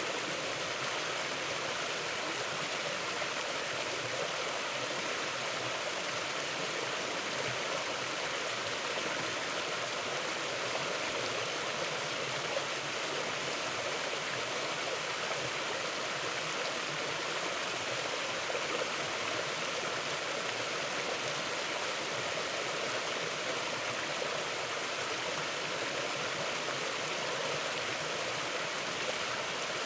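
Mountain river flowing over stones: a steady, even rushing of water with no breaks.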